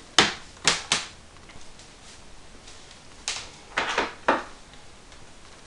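Cables and plugs being handled and pushed into the back of a computer monitor: a series of sharp clicks and knocks, three in the first second and four more around three to four seconds in.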